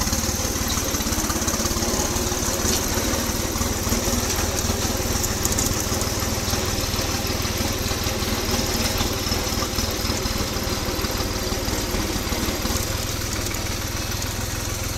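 New Holland tractor's diesel engine running steadily as the tractor is driven along.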